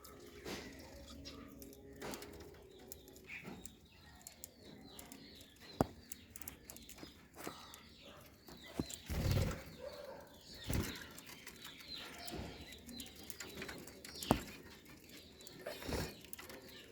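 Pet budgerigars chirping in many short, quick calls, with several sharp knocks and bumps scattered through.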